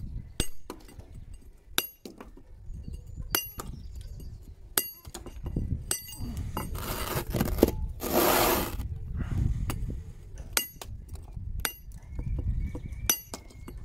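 Hammer striking a steel chisel to dress the rough edge off a sandstone walling stone: sharp metallic chinks about once a second, often in pairs. A longer rush of scraping noise comes in the middle.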